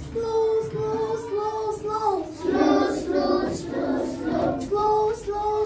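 A class of young schoolchildren singing together in unison, a simple melody of held notes that step up and down in pitch.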